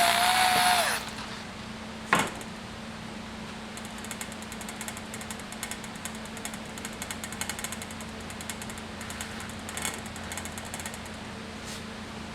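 A buffing machine's motor whine cuts off about a second in, followed by a single sharp click. A steady low hum continues, with a faint rapid high fluttering from the polishing of the drum shell.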